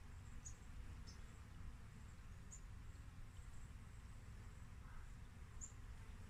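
Faint outdoor background: a steady low rumble with four brief, high chirps spread through it.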